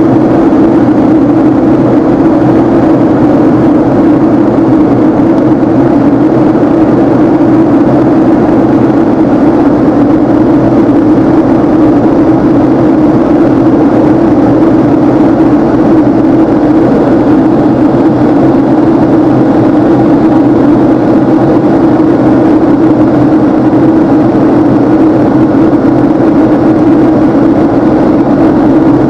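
Jet engine and airflow noise inside the cabin of a Boeing 767-300ER airliner climbing out after take-off: a loud, steady drone with a strong low hum.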